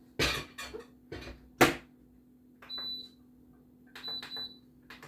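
A small countertop dishwasher being shut and started: a few knocks and one sharp clack, then its control panel gives three short high beeps as the buttons are pressed.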